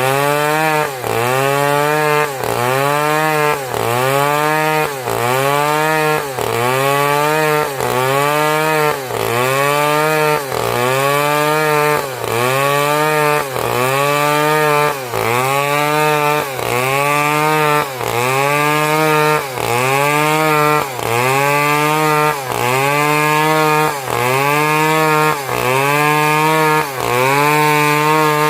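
Chainsaw engine running hard in regular cycles, its pitch rising and falling a little under once a second, with a brief dip in loudness between cycles.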